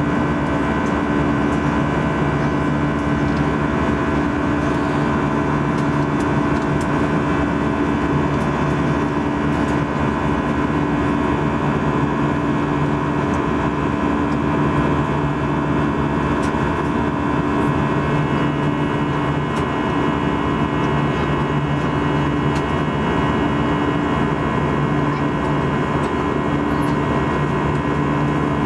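Airbus A320 jet engine and airflow heard from inside the passenger cabin in flight: a steady drone with a rushing noise and several steady hum tones.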